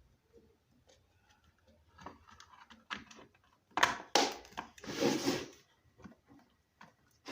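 Hands handling and fitting plastic stand-fan parts for a regulator: scattered light clicks, then two loud scraping, rustling bursts about four and five seconds in.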